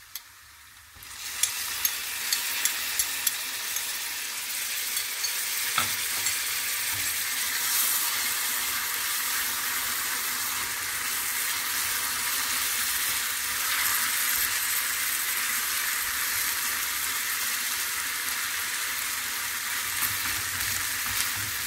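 Diced tomato, onion and green pepper sizzling in oil in a non-stick frying pan, stirred with a silicone spatula. The sizzle comes in about a second in, with a run of sharp ticks soon after, then holds steady.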